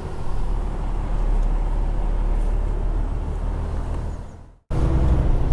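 Semi-truck engine rumble and road noise inside the cab of a Freightliner Cascadia moving slowly. About four and a half seconds in the sound fades out to silence, then cuts back in with a louder, steadier low engine hum.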